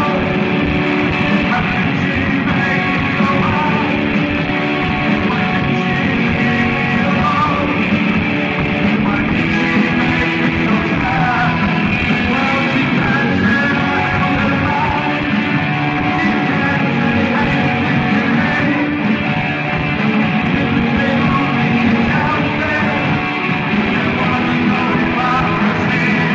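Live rock band playing loud: electric guitar, bass guitar and drum kit, with a voice at the microphone.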